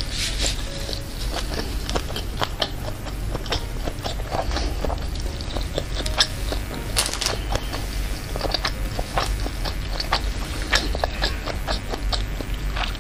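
Close-miked mouth sounds of a person chewing a mouthful of meatball, with many small irregular wet clicks and smacks.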